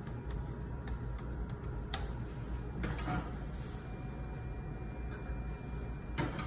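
Light clicks and taps as a 50 g stainless-steel calibration weight is lifted and set back down at a corner of an analytical balance's weighing pan for a corner-load test, over a steady low room hum.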